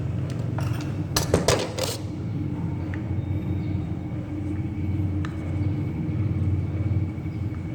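Steady low rumble, with a quick cluster of sharp clicks and clinks between about one and two seconds in.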